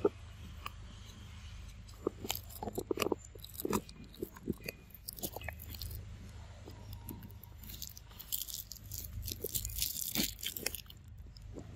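Close crunching, crackling and rustling as a monkey forages in dry leaf litter and among bits of food on the ground, with a burst of denser rustling near the end.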